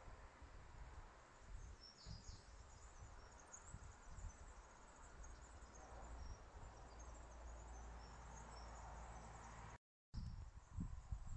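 Faint outdoor ambience: a low rumble of wind on the microphone, with faint high chirping. A brief dropout about ten seconds in is followed by a few louder low buffets on the microphone near the end.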